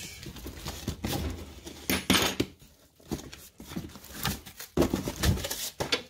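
Cardboard shipping box being opened by hand: flaps pulled back and handled with irregular rustling, scraping and light knocks, loudest about two seconds in.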